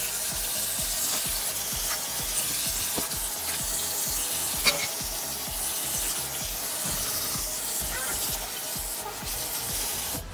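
A sponge scrubbing a stainless steel sink with powder cleanser: steady gritty rubbing with a few sharp clicks.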